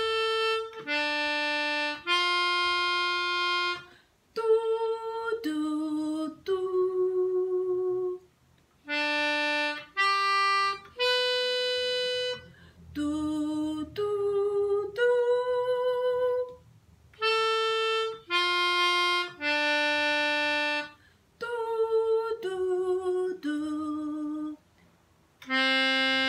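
A melodica plays short phrases of about three held notes. Each is answered by a woman singing the same notes back on 'doo', a call-and-response pitch-matching exercise. The pattern repeats three times and the melodica starts again near the end.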